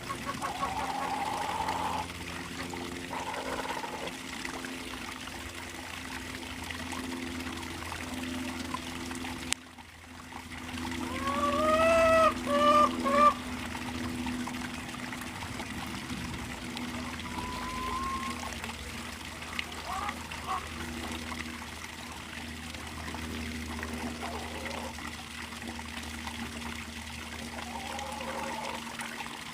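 Water trickling steadily around a backyard chicken coop, with a rooster crowing once, loudly, about eleven seconds in, and a few short chicken calls.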